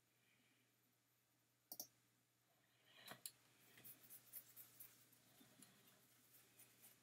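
Faint computer mouse clicks: a sharp pair a little under two seconds in, another pair around three seconds in, then a run of lighter, quicker ticks to the end.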